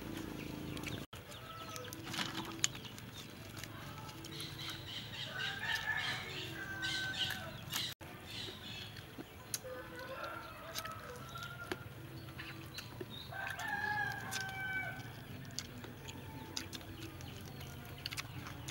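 Chickens in the yard: hens clucking with short repeated notes, and a rooster crowing, with long bending calls about five seconds in and again around thirteen seconds.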